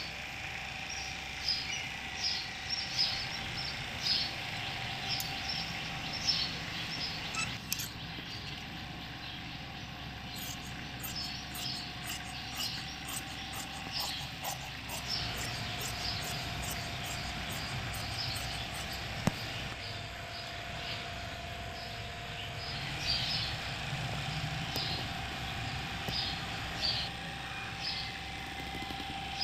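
Small birds chirping in short, repeated high calls in irregular clusters, over a steady faint hum.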